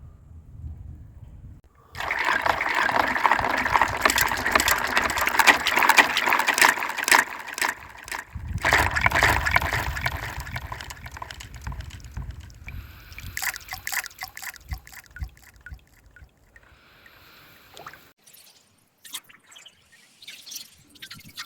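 Water bubbling and sloshing in a water-ring toy, in two long spells, the second starting about eight seconds in and fading away, followed by scattered small drips and clicks.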